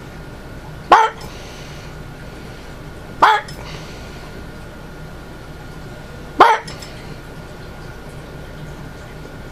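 Small dog barking three times: single sharp barks a couple of seconds apart.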